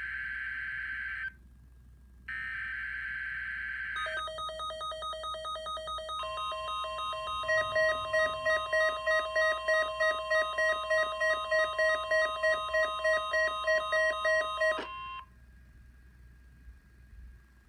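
NOAA Weather Radio weekly test: the end of the SAME data header, harsh warbling data bursts, two of them. Then several Midland WR120 weather radios go into alarm, beeping in quick pulses at a few different pitches over a steady warning tone, all cutting off together about fifteen seconds in.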